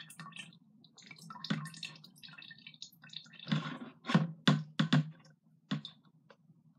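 Liquid slime activator pouring from a stainless steel bowl into the neck of a plastic jug: a thin trickle, then a run of separate drips and splashes between about three and a half and six seconds in.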